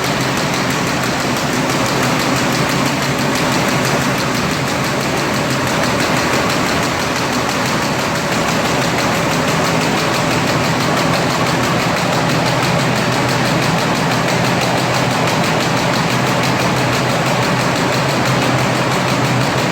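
Perforated paper bag making machine running steadily, a fast even mechanical clatter over a constant hum.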